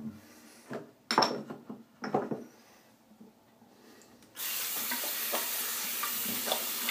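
Bathroom tap turned on about four and a half seconds in, water running steadily into the sink. Before it, a couple of brief handling noises.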